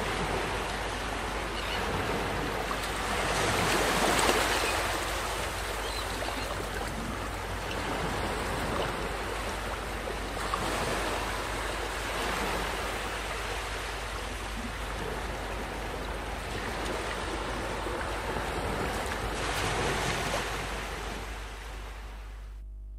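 Steady rushing noise without any tone, swelling and easing three times at intervals of several seconds, then dropping away near the end.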